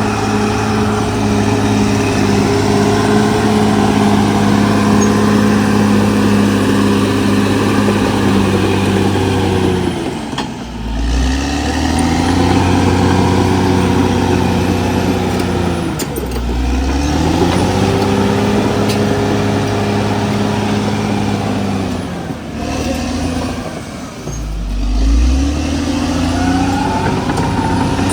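Diesel engine of a CAT D6R XL crawler bulldozer running hard at a steady pitch. Three times the engine note sags and climbs back up, as it takes a heavy load or the throttle is eased and reopened.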